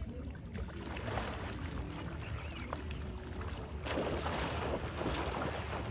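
Lake water sloshing and splashing around people wading waist-deep. Just before four seconds in there is a large, louder splash as one of them plunges into the water. A steady low rumble runs underneath.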